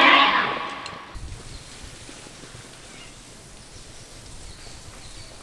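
Wild pig squealing loudly after an arrow hit, a high, bending cry that fades out about a second in. Then faint rustling in the bush.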